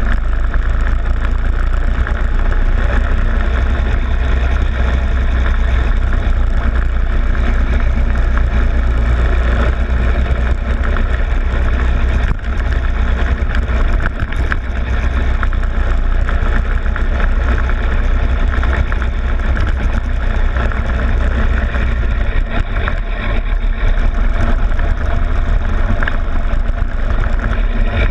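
Rental go-kart engine running at speed around the track, a steady drone with a heavy low rumble, picked up by a camera mounted on the kart's front fairing.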